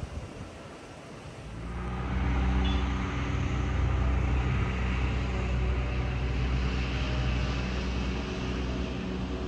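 A steady engine drone: a low hum under a rushing noise that swells in about a second and a half in and then holds at one pitch.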